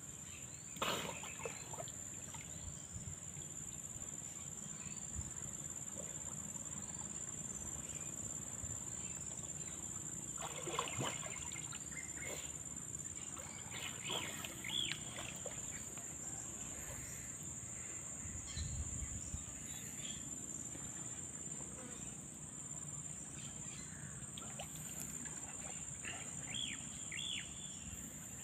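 Outdoor ambience of a rural spring: a steady high-pitched insect drone, with scattered short bird chirps.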